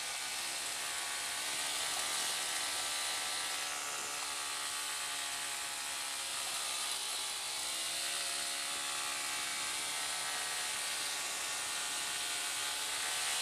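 Motorcycle engine revving hard in first gear while climbing a steep hill, its pitch dipping and rising again about halfway through, over a steady hiss of wind on the helmet microphone.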